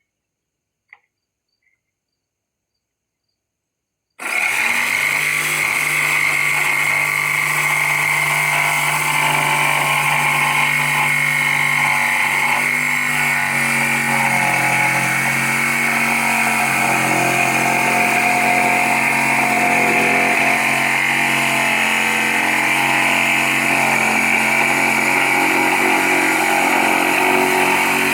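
Near silence for about four seconds, then an electric jigsaw starts abruptly and runs steadily, cutting through wood, its motor pitch wavering slightly under the load.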